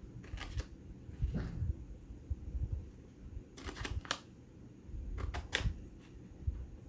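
Scissors snipping through an envelope's paper in a few short, sharp cuts, some in quick pairs, with soft thumps of the paper being handled.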